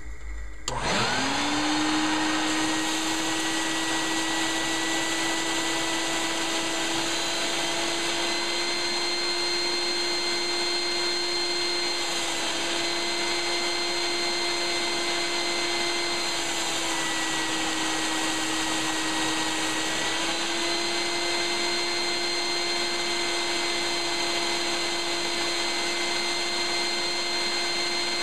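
Shop vacuum switched on about a second in, its motor spinning up quickly to a steady whine and running, sucking air through a Lego four-cylinder vacuum engine. The pitch sags slightly a couple of times midway, then recovers.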